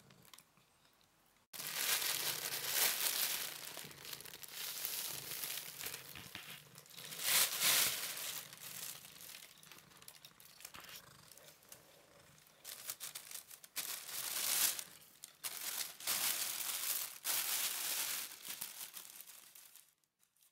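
Thin plastic carrier bag crinkling and rustling in irregular bursts as a cat noses and paws into it, starting abruptly about a second and a half in.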